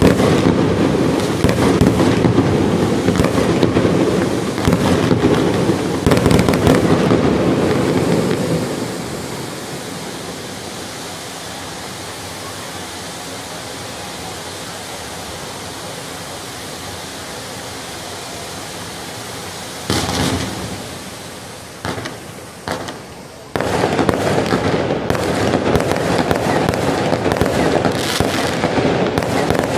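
Fireworks display: rapid bangs and crackling at first, then from about nine seconds a steadier hiss as a row of ground fountains sprays sparks. A sharp bang comes near twenty seconds and a couple more just after. From about twenty-three seconds dense bangs and crackling return as aerial shells burst overhead.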